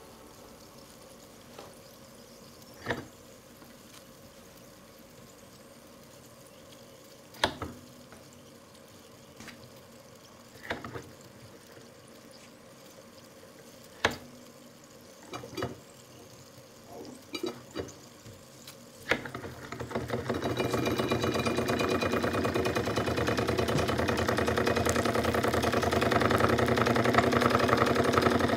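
Jensen 25 G model steam engine starting from cold: scattered sharp spits and clicks as condensed water is blown out of the cylinder through the exhaust tube. About twenty seconds in, the engine picks up and runs steadily with a rapid exhaust beat that grows louder.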